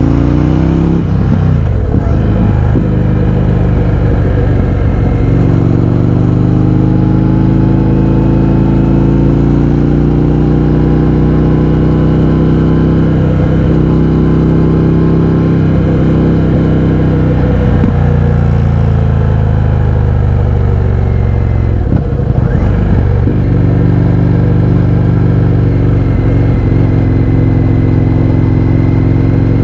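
Indian FTR 1200's V-twin engine through an Akrapovic exhaust with the baffles removed, ridden under way, its pitch rising and falling with the throttle and dropping sharply several times.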